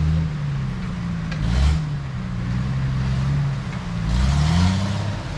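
Engine of an off-road 4x4 rig climbing a rocky trail, revved up and down several times, with rushes of noise where the revs peak, about a second and a half in and again near four and a half seconds.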